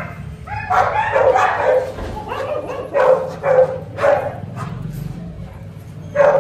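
Dogs barking in a run of short, repeated barks, with a lull about two-thirds of the way through before the barking picks up again near the end.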